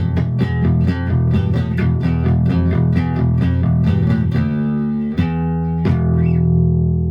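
G&L SB-2 Tribute electric bass played with a pick on its neck pickup through a Fender Rumble 25 bass amp: a quick run of picked notes, then two struck notes a little over halfway through, left ringing.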